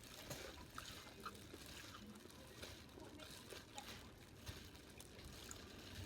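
Faint eating sounds: a scatter of soft clicks and mouth smacks from chewing food.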